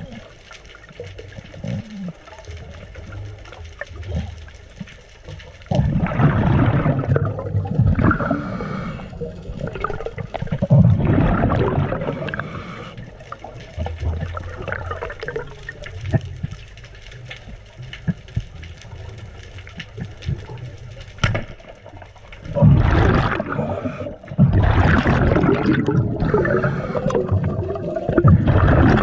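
Water rushing and gurgling around a camera in the sea, in several surges a few seconds long with a low rumble between them.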